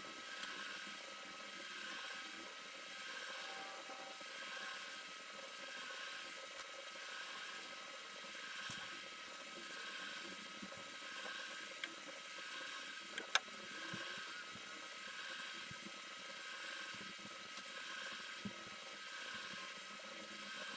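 Steady low hiss and whir that swells and fades about once a second, with a few light clicks scattered through it. The sharpest click comes about two-thirds of the way in.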